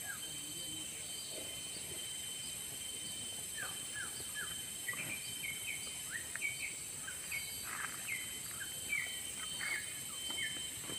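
Birds chirping: many short, quick, falling notes scattered throughout, over a steady high insect drone.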